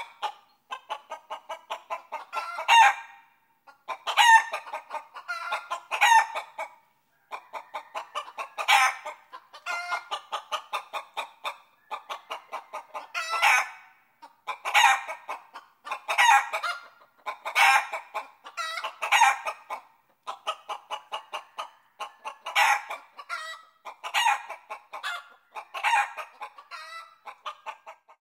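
Chicken cackling: runs of quick short clucks, each ending in a louder, drawn-out squawk, repeated again and again with brief pauses between.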